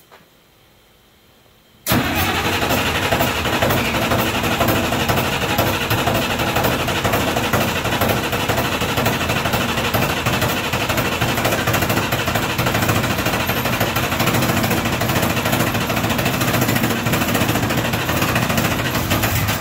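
Allis-Chalmers D-17's 301 diesel engine starting suddenly about two seconds in, then running loud and steady. It was a hard, smoky start, which the owner puts down to the engine probably not having the best compression.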